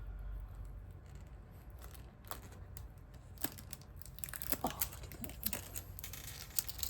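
Transfer tape being peeled off a freshly applied sticker, with scattered crinkling and crackling of the tape. The crackles grow busier from about halfway through.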